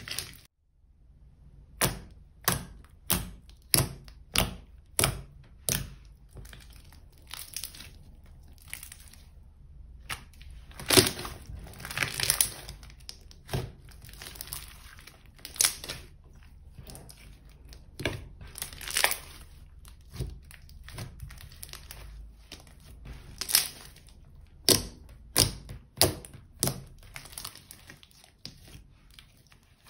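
Thick, sticky slime being pressed and squeezed by hand, giving a series of sharp pops and clicks, about two a second near the start, with denser crackling bursts later on.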